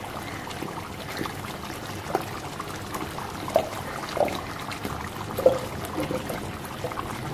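Aloo gosht curry bubbling in a pot on the stove: a steady hiss with scattered bubble pops, the loudest about three and a half and five and a half seconds in.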